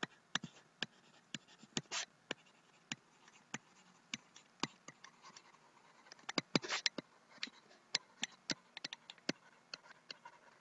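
Stylus tapping and scraping on a pen tablet during handwriting: a string of faint, irregular clicks, busiest from about six to nine seconds in.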